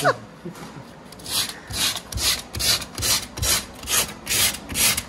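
Sandpaper rubbed back and forth by hand on drywall around a hole, smoothing it before a patch goes on. The strokes start about a second in and come evenly, roughly two and a half a second.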